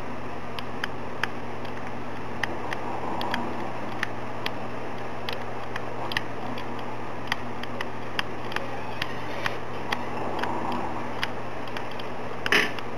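Knife blade scraping the metal end terminal of a cylindrical lithium-ion cell, giving sharp irregular clicks about once or twice a second and a louder scrape near the end: the terminal is being cleaned bare so solder will take to it. A steady low hum runs underneath.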